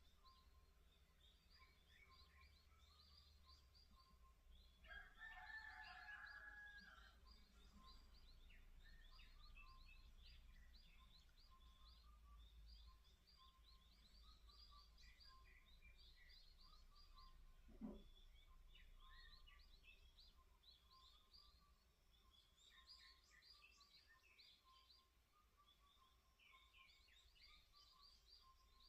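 Faint chorus of small songbirds chirping and twittering throughout, with a rooster crowing once about five seconds in. A single soft knock sounds about eighteen seconds in.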